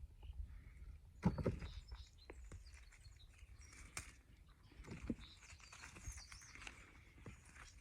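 Scattered soft knocks and rustles of digging and handling in garden soil, the loudest a thump about a second in, with faint bird chirps.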